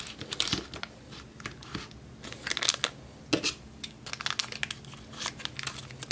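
Plastic blind bag crinkling and crunching as it is dug out of the clay compound and handled, in short irregular bursts.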